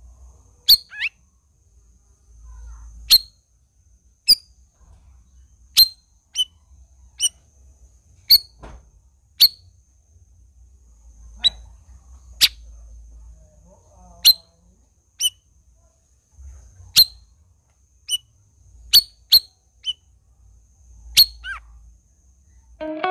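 A cucak rawis songbird calling: short, sharp whistled notes, each a quick downward sweep, repeated about once a second, sometimes in quick pairs.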